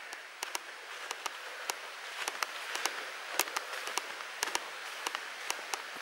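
Footsteps on a stony path covered with dry, crisp fallen leaves: a run of irregular small crackles and clicks.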